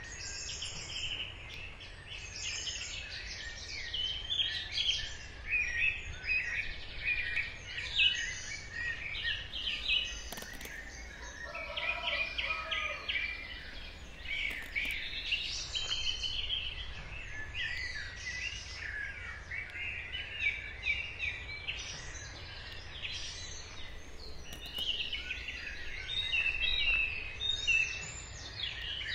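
Several birds chirping and singing at once, their short calls overlapping throughout, over a low steady background rumble.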